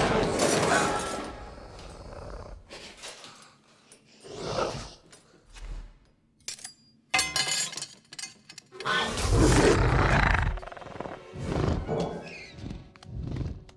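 Film soundtrack: music with a string of loud sound effects, a sudden crash about seven seconds in and long, heavy swells of noise after it, separated by short quiet gaps.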